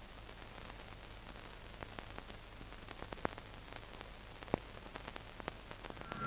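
Hiss and scattered crackles of an old film soundtrack running without speech or music, over a low steady hum.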